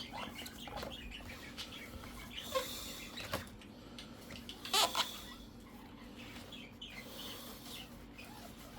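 Tissue rubbing and squeaking on the laptop's plastic base as it is wiped clean, in short rustling strokes with a louder scrape about five seconds in.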